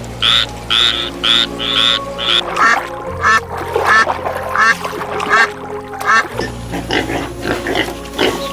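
Short animal calls repeating over background music: a quick run of calls for the first two seconds or so, then a slower series of short pitched calls about every two-thirds of a second.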